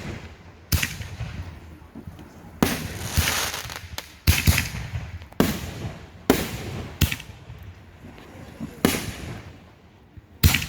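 Aerial fireworks bursting in a consumer backyard display: about nine sharp booms at irregular intervals, some followed by a longer crackling trail.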